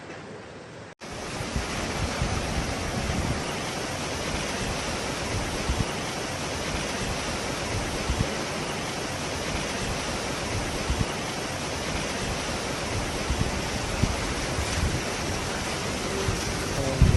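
Rushing floodwater: a loud, steady roar of water, with gusts of wind buffeting the microphone. It comes in suddenly about a second in, after a faint hiss.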